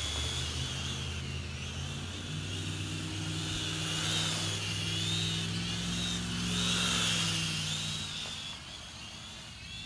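Small toy quadcopter's motors and propellers whining at a high pitch that wavers up and down as the throttle changes, over a steady lower hum that fades away about eight and a half seconds in.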